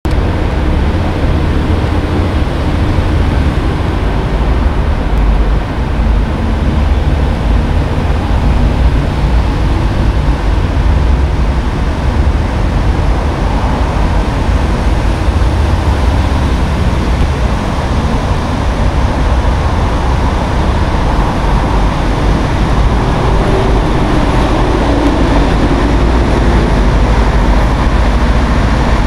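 Steady road traffic noise with buses passing, carrying a heavy low rumble throughout.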